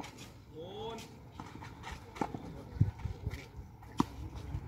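Tennis rally on a clay court: sharp pops of the ball off the racket strings about two seconds in and again near four seconds, with a duller thud of the ball bouncing on the clay between them.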